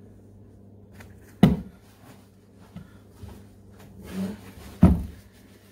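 Two sharp knocks on a tabletop, about a second and a half in and again near the end, with light rustling and small clicks between: a leather high-top sneaker being handled and set down on the table.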